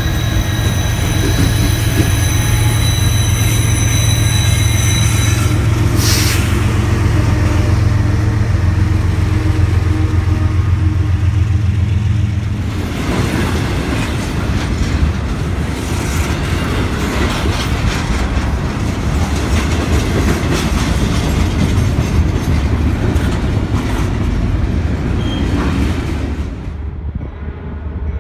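Union Pacific diesel freight locomotives passing close, a loud steady engine drone with a high whine; about halfway through the drone gives way to the rolling noise of double-stack container cars, wheels clattering on the rails.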